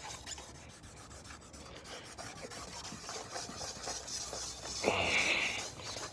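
Wet polishing pad rubbed back and forth by hand over a plastic headlight lens, a steady scrubbing with one louder stroke about five seconds in, as the pad takes the oxidation off the lens.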